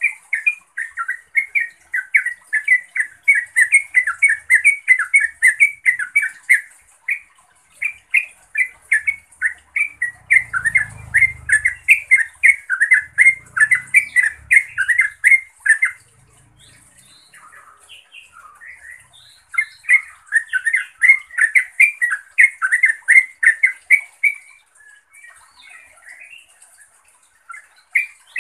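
Yellow-vented bulbul (trucukan) calling in long runs of quick, bubbling chattering notes. It breaks off about sixteen seconds in, starts again a few seconds later, and trails off into scattered notes near the end.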